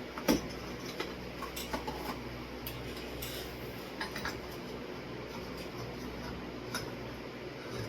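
Small clicks and taps of hard parts being handled during a ceiling fan installation, with one louder knock just after the start, over a steady fan hum.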